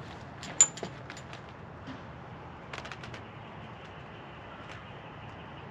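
Sharp metallic clicks and clinks from the bimini top's metal frame and strap fittings being handled. The loudest comes about half a second in, with a few quick clicks after it and a short cluster near three seconds.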